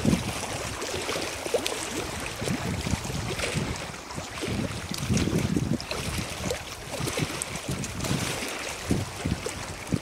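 Wind blowing over open lake water and buffeting the microphone in irregular gusts.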